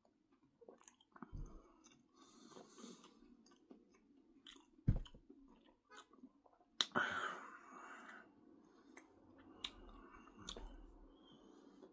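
A person chewing a soft dough puff filled with macaroni and cheese close to the microphone: quiet, irregular wet mouth sounds. A sharp knock about five seconds in and a louder click with a second of rustling noise about two seconds later stand out.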